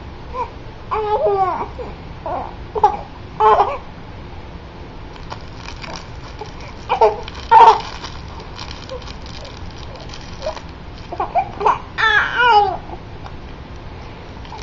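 A baby's happy babbling and squeals in short high-pitched bursts, in three clusters, the loudest about seven seconds in and again near the end.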